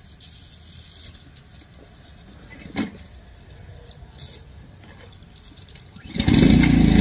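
Honda GCV200 single-cylinder engine on a pressure washer, pull-started: it catches about six seconds in and runs steadily. Its no-start has been cured by cleaning the carburetor jet.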